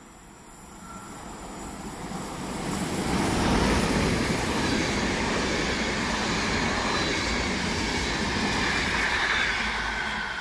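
ÖBB long-distance passenger train running past. The rolling noise of its coaches swells over the first three seconds or so, holds steady while the coaches go by, and starts to fade near the end as the last coach pulls away.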